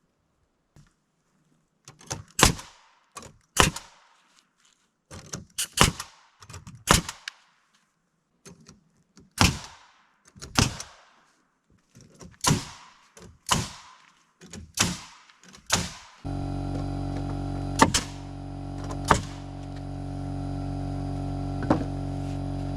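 Nails being driven into wooden wall framing: sharp, ringing knocks, single or in pairs, about once a second. About two-thirds of the way through a steady machine hum cuts in abruptly, with three more knocks over it.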